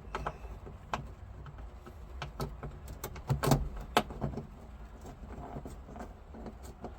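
Glove box liner being pushed and worked into the dash opening: a string of irregular clicks, knocks and scraping as its clips are pressed into their holes. The sharpest knocks come about three and a half and four seconds in.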